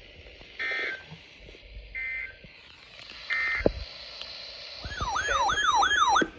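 Three short bursts of Emergency Alert System end-of-message data tones (SAME code), about a second and a half apart, marking the end of the weather radio warning. Then, for about a second and a half, an electronic siren-like yelp, sweeping up and down about three times a second.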